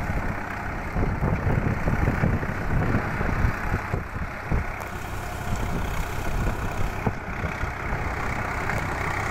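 Swaraj diesel tractor engine running steadily under load while it drives a Tata rotavator through a flooded, muddy paddy field.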